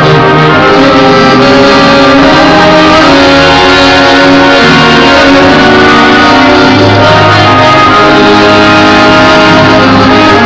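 Band music with guitar to the fore and held, sustained notes: an instrumental passage without singing.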